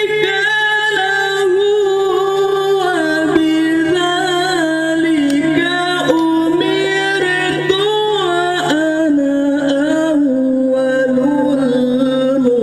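A boy reciting the Quran in melodic tilawah style through a microphone and PA: long held notes with ornamented turns, the pitch stepping lower through the passage.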